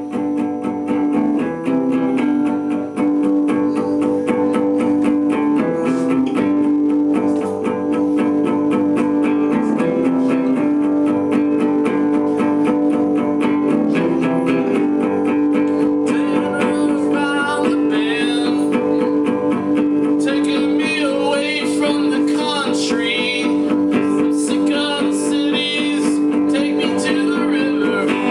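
Acoustic guitar strummed in a steady repeating pattern as a song begins. A man starts singing over it a little past halfway through.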